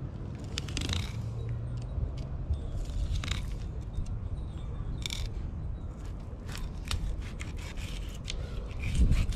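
Fillet knife cutting through a yellowtail snapper: scattered scrapes and crackling clicks as the blade works through the fish on the cleaning table, coming more thickly in the second half.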